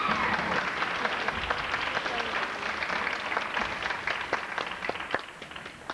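Audience applauding after a gymnast's vault. The clapping thins out and fades near the end.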